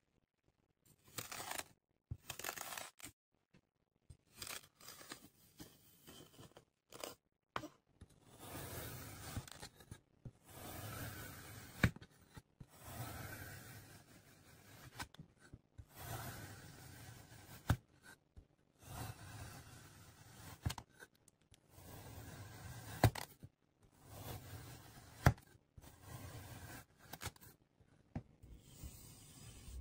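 Kinetic sand being cut and squished: a long run of soft crunching, tearing strokes as the blade slices through the packed sand, each lasting a second or two with brief pauses between them, and a few sharp clicks along the way.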